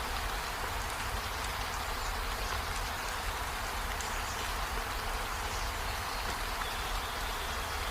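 Steady rain falling on trees and a window: an even hiss with scattered drop ticks and a low rumble underneath.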